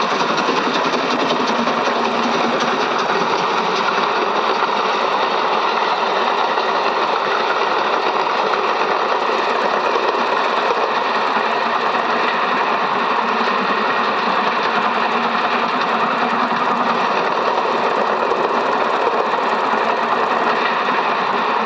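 Cine film projector running: a steady mechanical whirr.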